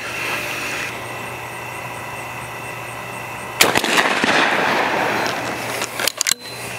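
A single shot from a 12-gauge Beretta Silver Pigeon over-and-under shotgun, fired with a 2¾-inch Federal 7.5 shot load about three and a half seconds in. Its echo dies away over about two seconds, and a few sharp clicks follow near the end.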